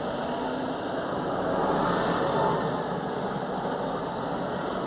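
Diesel engines of large farm tractors driving past one after another at close range, heard from inside a stopped car; the sound swells a little about two seconds in as one passes.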